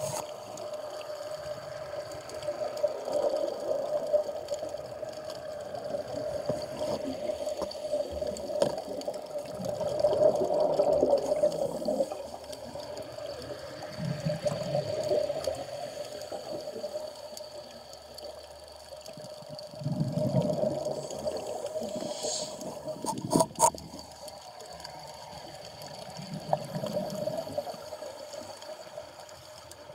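Scuba divers breathing underwater through their regulators: bursts of exhaled bubbles every few seconds over a steady hum, with a few sharp clicks a little past the middle.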